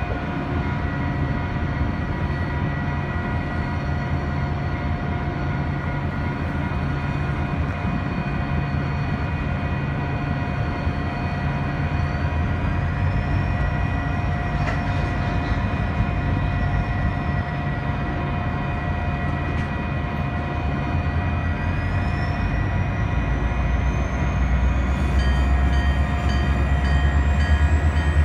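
Freight train of tank cars rolling slowly through a grade crossing: a low rumble with a steady high-pitched ringing over it. The rumble grows louder over the last few seconds.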